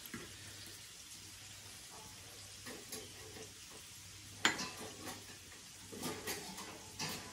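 Knife and fork scraping and clinking on ceramic serving dishes as cooked fish is portioned and laid on a plate, with one sharp clink about halfway through and more clatter near the end, over a faint steady hiss.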